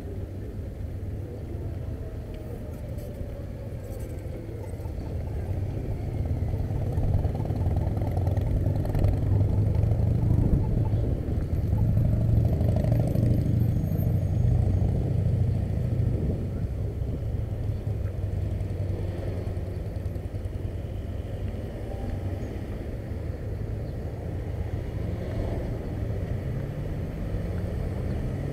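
Road traffic: a steady low rumble with motor vehicles passing, swelling louder through the middle.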